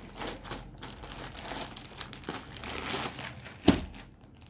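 Clear plastic packaging bag around a folded clothing set crinkling as it is handled and moved, with a single sharp thump a little before the end.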